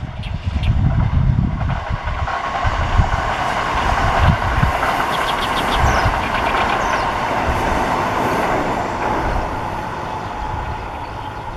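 An electric train passing: a steady rushing rail noise that eases off near the end. Wind buffets the microphone underneath.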